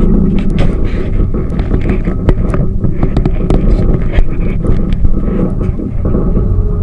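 Tour boat's motor running steadily underway, a loud low rumble, with scattered sharp clicks and knocks throughout.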